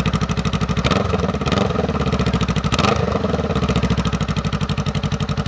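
Honda Rebel 500's 471cc parallel-twin engine running at a standstill, heard through its exhaust as an even, rapid pulse, with short swells about one and three seconds in.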